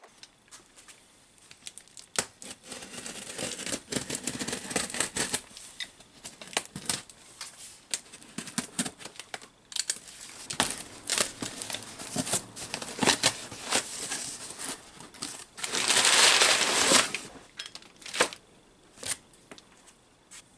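A cardboard parcel being opened and unpacked by hand: the box and its packing crinkling and rustling, with scattered knocks, scrapes and clicks, and a loud rip lasting about a second late on.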